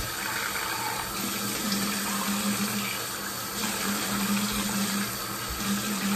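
Bathroom sink faucet running warm water steadily while hands splash it onto the face to rinse off cleanser, with a steady low hum underneath.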